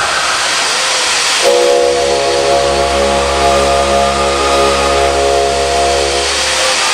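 Steam jets of the Fall of Atlantis animatronic show hissing steadily. About a second and a half in, a deep, loud sustained tone joins them, with a low rumble beneath it. The tone holds for about five seconds and stops shortly before the end.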